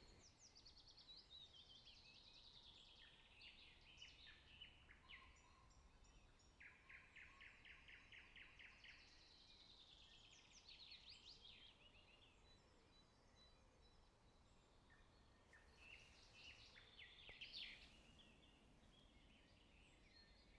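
Faint woodland birdsong: several small birds singing overlapping chirps and trills, with a rapid, even trill about seven seconds in.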